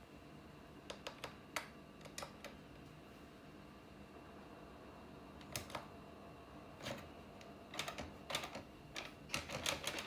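Scattered hard plastic and metal clicks and clacks from a Knewkey Rymek typewriter-style keyboard being handled as its tablet stand is fitted into place. A few isolated clicks come first, then denser clusters in the last few seconds.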